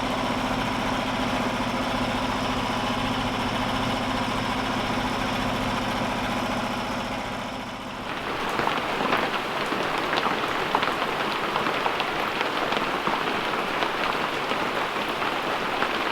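A steady engine hum for about the first half, then a dense crackling, pattering noise full of sharp ticks.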